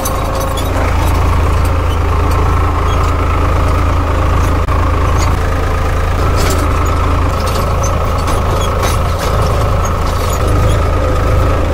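Farm tractor's diesel engine running steadily while pulling a seed drill through the field, heard from the driver's seat, with scattered clicks and rattles over the engine note.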